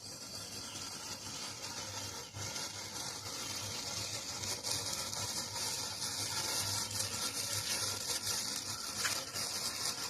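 Matchsticks igniting one after another in a chain, a steady hissing fizz with fine crackles that grows louder over the first few seconds.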